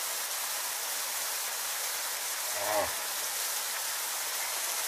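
A thin waterfall splashing steadily down a rock face into a shallow stony pool: an even, hissing rush of water. A brief voice sounds about two and a half seconds in.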